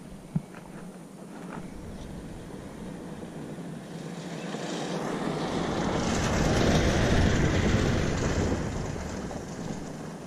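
A vehicle passing by: a broad rushing noise that swells from about three seconds in, is loudest a couple of seconds past the middle, and fades toward the end. A single sharp click sounds just after the start.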